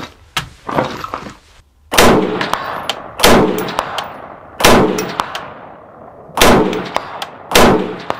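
Five AR-15 rifle shots, the first about two seconds in, spaced one to two seconds apart, each with a trailing echo. Each shot is followed by a faint ping of a steel target being hit, and a few light clicks come before the first shot.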